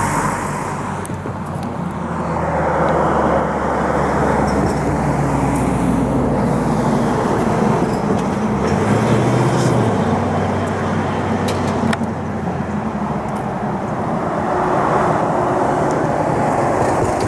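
Road traffic: a motor vehicle's engine running steadily with road noise, the low hum shifting up in pitch for a moment about nine seconds in.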